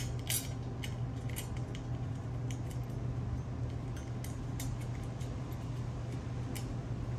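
Small metallic clicks and clinks of bolts and washers being handled and hand-threaded into a steel compressor mounting bracket, scattered and most frequent in the first second or so. A steady low hum runs underneath.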